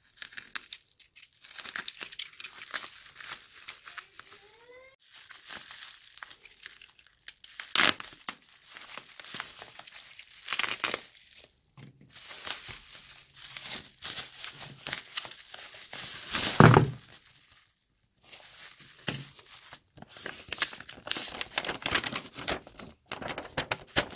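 Bubble wrap and plastic packing tape crinkling and rustling as a parcel is cut open with a utility knife and the wrap pulled apart, with tearing of tape. A few sharp knocks stand out, the loudest about two-thirds of the way through.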